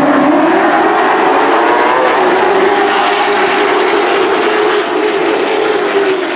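A pack of Late Model stock cars running together, engines rising in pitch over the first couple of seconds as the field accelerates, then holding at high revs.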